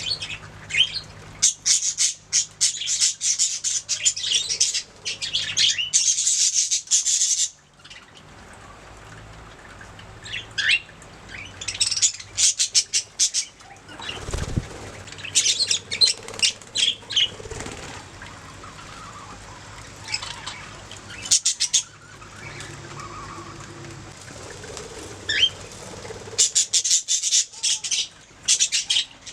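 Budgerigars chattering and warbling in bursts of rapid, high chirps, with quieter gaps between the bursts. A brief low thump comes about halfway through.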